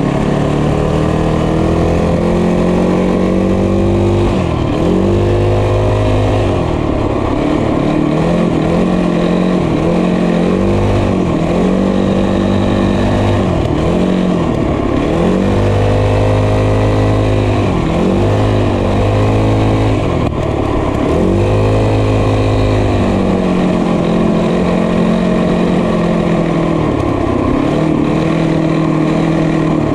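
Small motorbike engine under way, its revs climbing and then dropping off sharply again and again as the throttle is worked.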